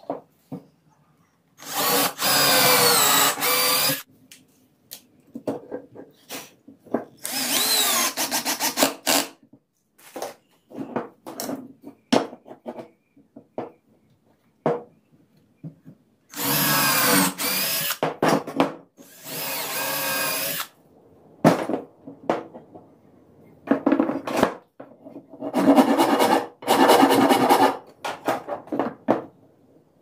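Cordless drill running in several bursts of one to two seconds, its motor pitch rising and sagging as it works into the joint of two crossed branch pieces, with clicks and knocks of the wood being handled on the bench between bursts.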